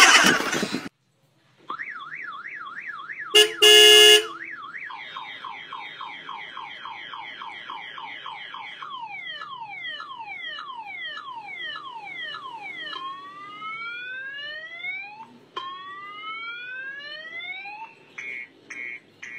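Electronic car-alarm siren cycling through its tones: a fast up-and-down warble, then rapid falling chirps, then slower rising whoops, with a few short beeps near the end. A short, loud horn-like blast about three and a half seconds in is the loudest sound.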